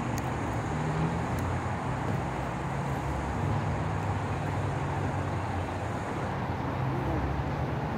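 A steady, low engine drone running on without a break, from a motor out of sight.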